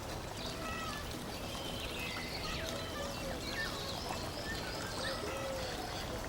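Birds chirping and whistling in short, scattered calls over a steady rushing hiss like flowing water.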